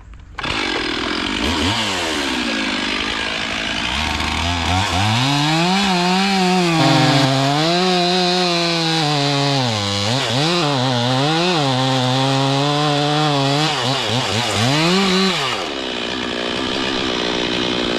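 Two-stroke chainsaw started into a cut on a large oak trunk, its revs dipping and recovering again and again as the bar bites into the wood under load. The saw comes in suddenly about half a second in and eases off slightly near the end.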